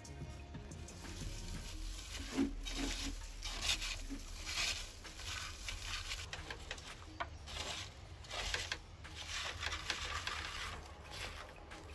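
Hand mixing sliced rose apples with salt in a clay pot: irregular rustling and scraping of the fruit pieces against each other and the pot, starting about a second and a half in.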